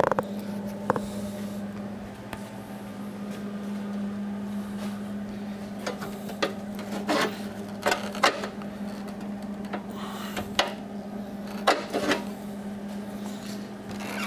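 MIG welder laying about ten brief tack welds on a new steel patch in a mower deck shroud, from about six seconds in, over a steady low hum.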